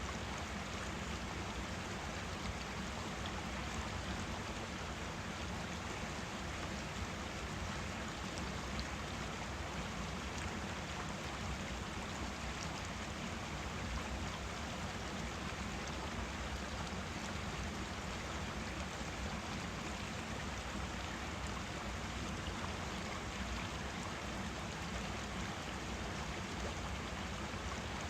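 A forest stream running over rocks: a steady, unbroken rush of flowing water.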